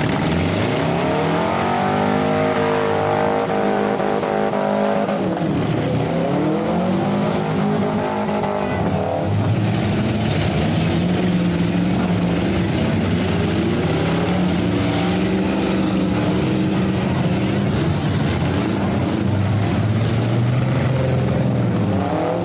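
Demolition derby cars' engines revving hard, their pitch climbing and dropping again and again as the drivers accelerate and back off, over a constant din of several engines running at once.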